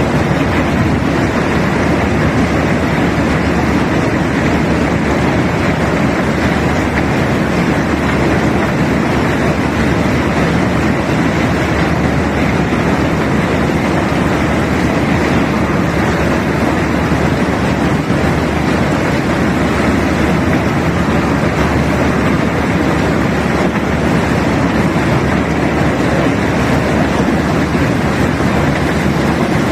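Self-unloading barge's unloading machinery running, a steady, unchanging rushing noise.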